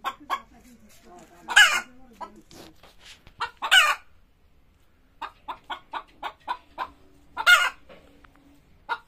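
Hen cackling: runs of short clucks, each building to a loud squawk, three squawks in all with a short pause midway. This is the laying call a hen makes around laying an egg.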